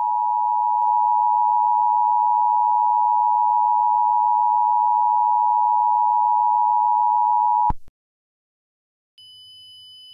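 Emergency Alert System attention signal: a loud, steady two-tone beep of about 853 and 960 Hz sounding together, cutting off abruptly about eight seconds in. About a second later a faint, steady high tone begins.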